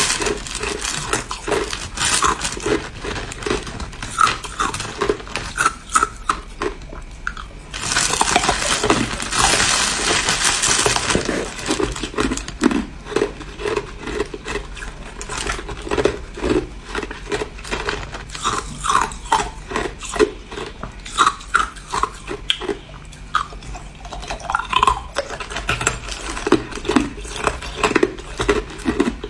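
Hard clear ice being crunched between the teeth close to the microphone: a run of sharp cracks and crunches, with a stretch of denser steady crackling from about eight to eleven seconds in.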